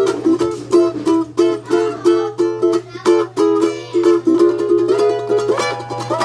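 Ukulele played with quick strummed and picked notes in a steady rhythm, about two to three a second, with a low steady hum beneath.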